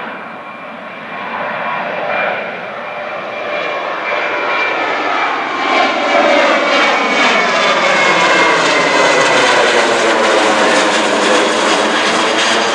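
Twin-engine jet airliner flying low overhead, its engine roar swelling about five seconds in and staying loud, with a swishing sweep in pitch as it passes above.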